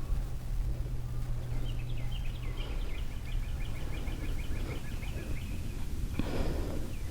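A small bird sings a rapid trill of short, repeated high chirps for a couple of seconds, over a steady low outdoor rumble. A brief burst of rustling noise comes near the end.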